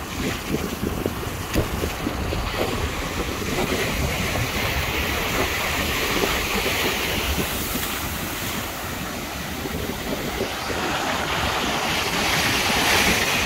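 Ocean surf breaking and washing up the sand, with wind buffeting the microphone. The hiss of the wash swells about halfway through and again near the end.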